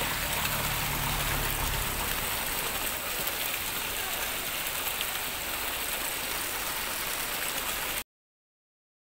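Water gushing steadily into a concrete trout pond through a wire-mesh screen, a dense rushing splash. It cuts off suddenly about a second before the end.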